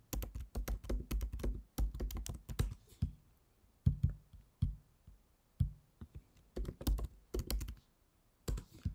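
Typing on a computer keyboard as folder names are entered: a quick run of keystrokes for about three seconds, then slower, scattered keystrokes.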